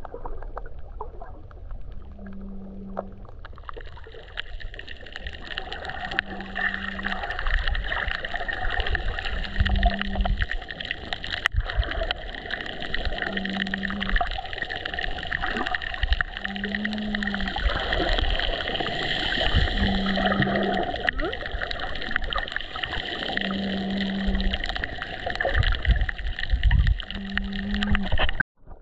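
Underwater camera sound while snorkeling: a steady hiss and crackle of water, with a short low hum repeating about every three and a half seconds.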